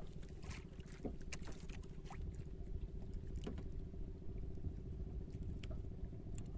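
A small fishing boat's engine idling with a steady low hum, with scattered light clicks and taps of hand-line and gear handling on the boat.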